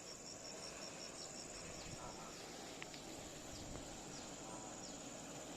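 Insects chirping in the forest: a steady high insect drone with a rapid pulsed chirp, about four a second, that stops about two seconds in.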